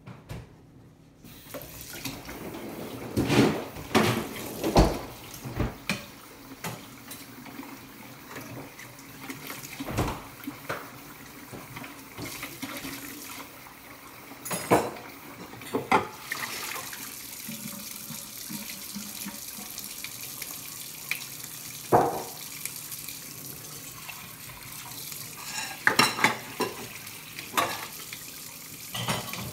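Kitchen tap turned on about a second in and running into the sink, with dishes and cutlery clattering and knocking against each other and the sink now and then as they are washed by hand.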